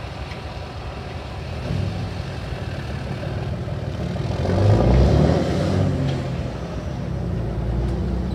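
Pickup truck towing a flatbed trailer pulling away and accelerating across the railroad crossing, a low engine rumble that swells to its loudest about five seconds in.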